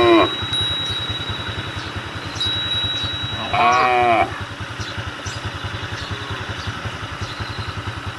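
Cattle calling with short, fairly high moos, one right at the start and another about three and a half seconds in, each lasting under a second. An engine runs steadily underneath.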